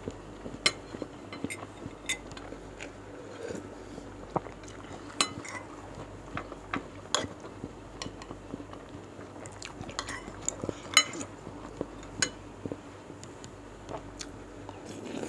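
Metal spoon and fork clinking and scraping against a bowl and plate, with scattered sharp clinks, mixed with close-miked chewing and biting of meatballs and rice.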